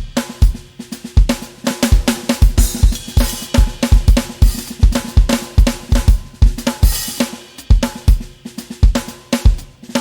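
Music with a steady drum-kit beat: kick drum, snare and cymbals.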